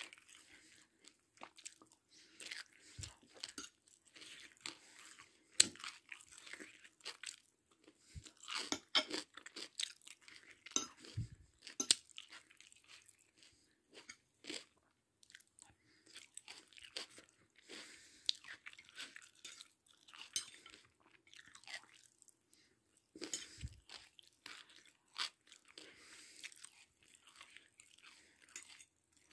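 A person chewing and crunching a mouthful of chicken biryani with nuts, close to the microphone. The crunches are quiet and irregular, with a few louder ones scattered through.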